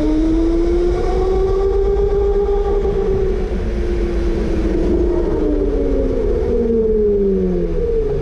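Electric indoor go-kart's motor whining under load, heard from the kart itself. The pitch holds high, then falls over the last couple of seconds as the kart slows. A steady low rumble runs underneath.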